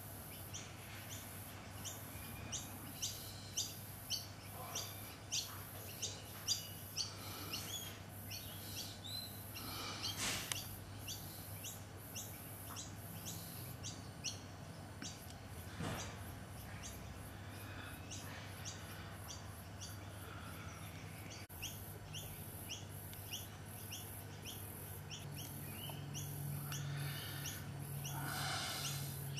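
Birds chirping outdoors: a short high chirp repeated over and over, about twice a second through the first half, then more sparsely, with another call near the end. A faint steady low hum and a faint high pulsing run underneath.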